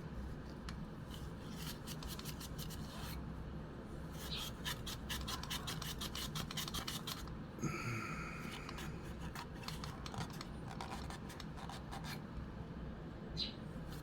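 A cloth damp with isopropyl alcohol scrubbing inside a vintage movie camera's battery compartment to clear corrosion: runs of quick rubbing strokes with short pauses between them.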